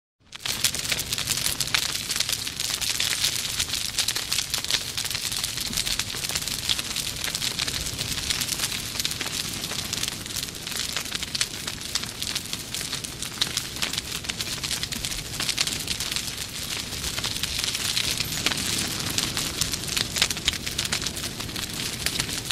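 Bonfire burning, with dense, steady crackling and popping over a hiss.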